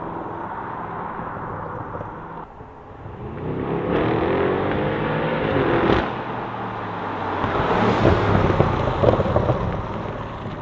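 BMW M550i's twin-turbo 4.4-litre V8 through high-flow catted downpipes, running steadily and then climbing in pitch as it accelerates for about three seconds. The note cuts off sharply about six seconds in, followed by a rougher stretch with a run of crackling pops from the exhaust on lift-off.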